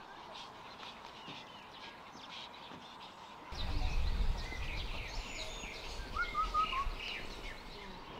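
Outdoor ambience of many small birds chirping and calling over a steady background hiss. About three and a half seconds in, the sound cuts to a louder bird chorus with a low rumble underneath.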